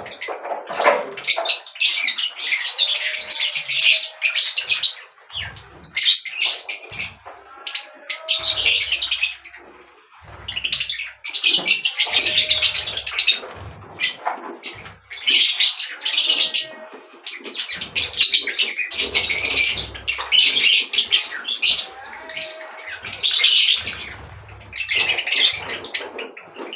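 Birds chirping and chattering in repeated bursts of a second or two each, with a few short lower call notes between the bursts.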